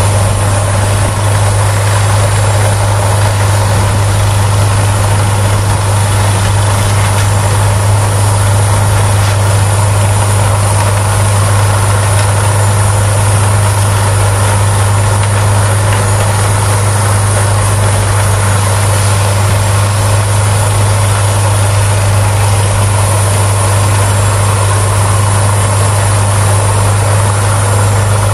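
Peterson whole-tree drum chipper running steadily at working speed, its large diesel engine and chipping drum making a loud, unbroken drone with a strong low hum, while chips blow out through the discharge spout.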